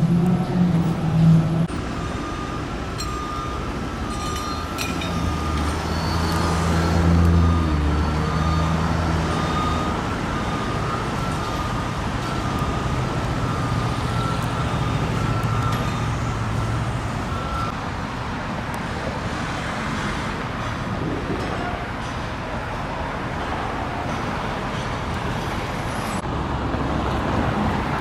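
Road traffic rumbling steadily, swelling as a heavy vehicle passes about a third of the way in. A repeating high-pitched beep runs through the first half.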